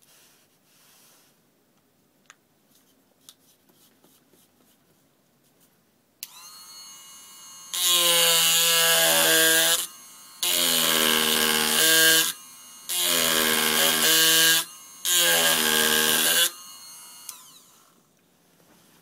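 After a few faint rustles, the vibrating head of an HCT-30S electric wood-carving machine is switched on about six seconds in and buzzes steadily. It then drives its 12 mm round gouge into hard yew wood in four loud cuts of one to two seconds each, with quieter running between, and winds down with a falling pitch when switched off near the end.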